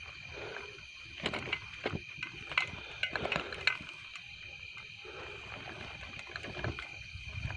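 Footsteps and rustling over dry grass, with scattered clicks and scuffs, most of them in the first half, over a steady high-pitched drone of night insects.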